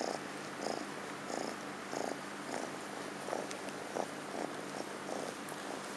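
Kitten purring close to the microphone, a steady purr that swells and fades about one and a half times a second.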